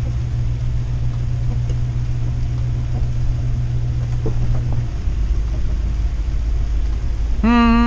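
Class A motorhome's engine and road rumble heard from the driver's cab while driving slowly, a steady low drone whose higher hum drops away about five seconds in. Near the end a held, pitched tone with overtones begins.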